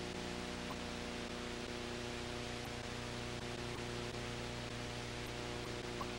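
Steady hiss with a low electrical hum and a couple of faint clicks: the background noise of a silent home-movie transfer, with no other sound in it.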